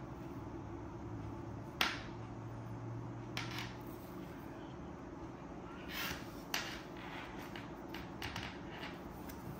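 Plastic dash cam housing and rear camera being handled with fabric-gloved hands: a handful of light clicks and brief scrapes, the sharpest about two seconds in, over a steady low hum.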